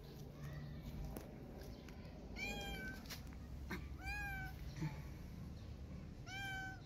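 Adult calico cat meowing three times, about a second and a half apart, each call rising and then falling in pitch.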